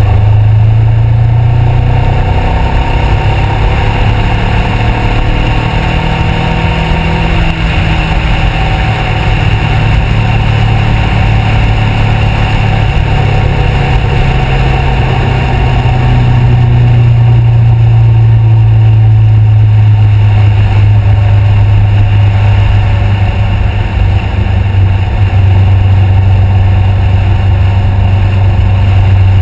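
A Honda CBR500R's 471 cc parallel-twin with a Two Brothers aftermarket exhaust, running steadily under way at road speed and heard from a camera on the bike. The exhaust note holds a low, steady pitch, shifts a little in the first few seconds, and drops in pitch a few seconds before the end.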